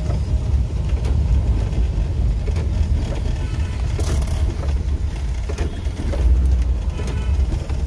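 Maruti Suzuki Gypsy King driving on a wet road, heard from inside the cabin: a steady low engine and road rumble with tyre hiss, and a brief sharper hiss about four seconds in.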